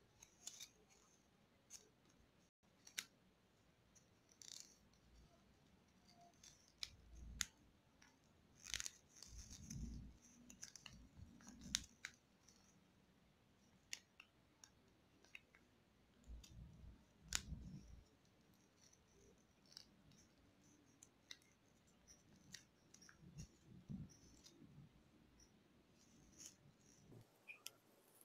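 Faint handling of a sheet of origami paper being folded and creased by hand: scattered small crinkles and clicks, with a few soft low thumps.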